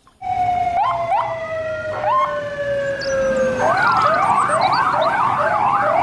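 Police car electronic sirens sounding, several tones at once: long, slowly falling wails with sudden jumps in pitch, then a little past halfway a fast warbling yelp of about three cycles a second.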